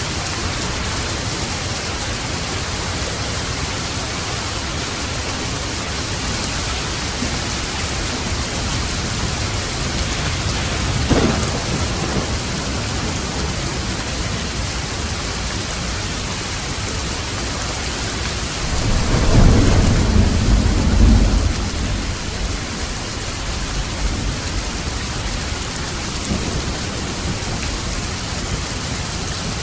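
Steady heavy rain falling, with a short thunder crack about eleven seconds in and a longer, louder low rumble of thunder about two-thirds of the way through.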